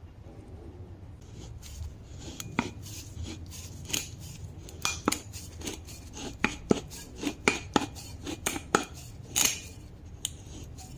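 Handheld pipe cutter being worked around metal tubing to cut a fork preload spacer: irregular sharp metallic clicks and clinks as the cutter is turned and its handle adjusted, starting about two seconds in.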